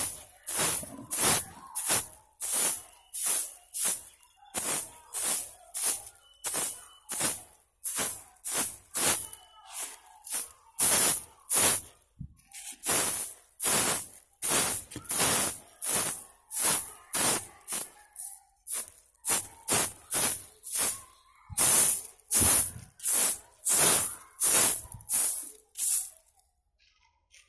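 Stiff stick broom sweeping sandy ground: rapid, even strokes, each a short scratchy swish, a little under two a second, with a brief pause about halfway through and stopping shortly before the end.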